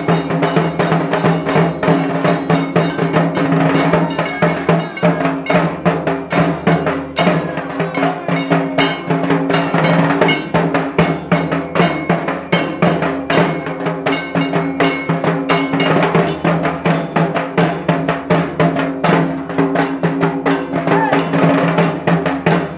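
Two dhaks, the large barrel-shaped Bengali festival drums, beaten fast with sticks in a dense, driving rhythm, with a steady ringing drone of tones underneath.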